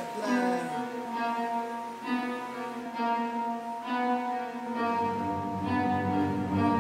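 Background music: an instrumental stretch of a rap track with long held melodic notes, joined by a deep bass line about five seconds in.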